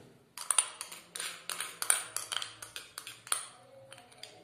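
A spoon tapping and clinking against dishes: a quick, irregular run of light clicks with a short bright ring, about four a second, that starts just after the beginning and thins out near the end.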